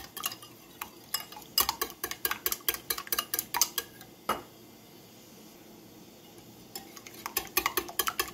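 Metal wire whisk beating eggs in a glass bowl: quick, rapid clicks of the wires against the glass, stopping for about two seconds midway and then starting again.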